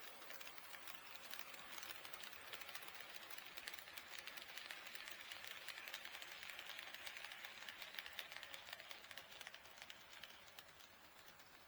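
HO scale model train running on KATO Unitrack, its wheels clicking rapidly over the rail joints, with a faint rolling rumble that swells in the middle as it passes close and fades near the end.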